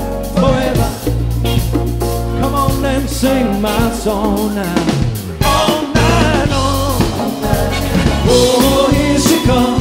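A live soft-rock band playing, with a male lead vocal sung over drums, bass and keyboards.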